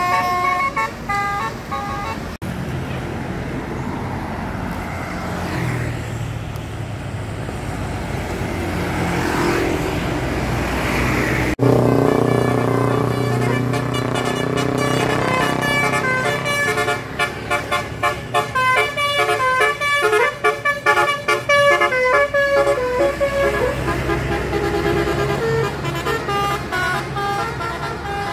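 Tour bus 'telolet' musical horns playing quick multi-note tunes over a running bus engine. In the middle there is a stretch of engine and road noise with rising engine pitch and no horn. The horn tunes come back about twelve seconds in, with rapid stuttering notes for several seconds.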